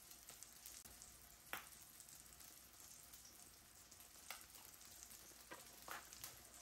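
Faint sizzle of ground-beef patties frying in a cast-iron skillet, with a few short soft clicks as soup is ladled.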